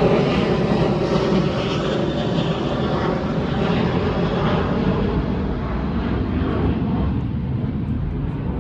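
Southwest Airlines Boeing 737 jet passing overhead, its engine noise loud at first and slowly fading as it moves away.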